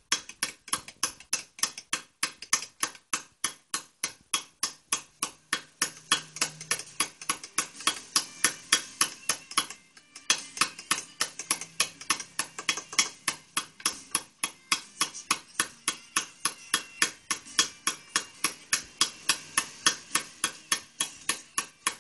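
Hammer striking a steel chisel on stone in a steady run of quick, sharp taps, about three a second, with a short pause about ten seconds in: hand-carving a relief design into a stone slab.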